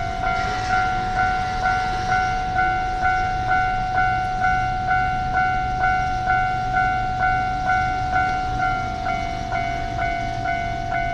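Japanese railway level-crossing alarm ringing: an electronic bell striking evenly about twice a second over a steady ringing tone, the warning that a train is approaching or passing.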